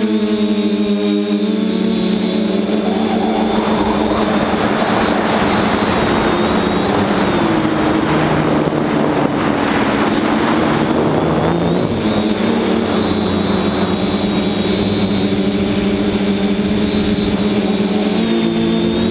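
Electric motors and propellers of a multirotor drone in flight, heard close up: a steady whine and hum that shifts in pitch near the end as the motor speed changes. A rushing noise swells in the middle stretch and fades again.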